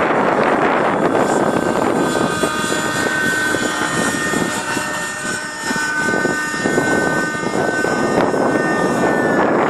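Thunder Tiger Raptor 30 radio-controlled helicopter in flight: its small two-stroke nitro glow engine whining steadily over the rotor noise, easing off briefly about halfway through.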